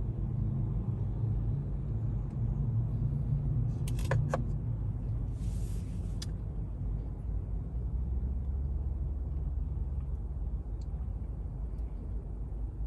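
Low steady rumble of a car idling while stopped, heard from inside the cabin. A few short clicks come about four seconds in, and a brief hiss follows about a second later.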